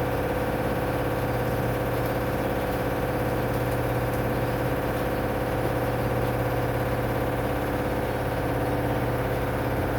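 Steady mechanical hum and drone of a washing machine in the last part of its spin cycle, holding an even pitch throughout.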